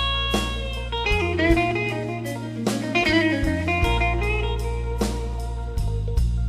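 A live blues band playing an instrumental passage of a slow blues: an electric guitar lead with held, bending notes over bass guitar and drums.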